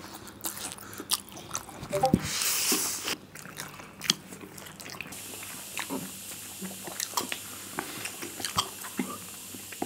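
Close-miked eating of spicy instant noodles with chopsticks: wet chewing and mouth smacks, with a longer noisy slurp about two seconds in.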